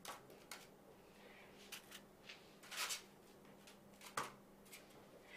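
Faint handling noises of objects being moved on a tabletop: scattered light clicks and rustles, with a brief scrape about three seconds in and a sharp click just after four seconds. A faint steady hum runs underneath.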